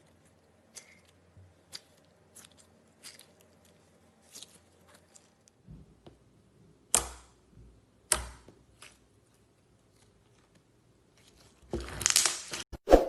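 Slime being handled by hand: scattered sticky pops and small clicks, two louder snaps about 7 and 8 seconds in, and a dense crackling squish near the end that is the loudest sound.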